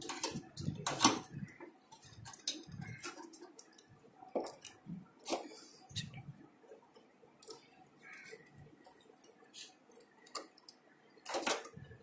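Scattered small clicks and taps of push-on wire connectors and wiring being handled and fitted to the terminals of an Onida microwave oven's control-panel board, with soft handling rustle; the loudest click comes about a second in.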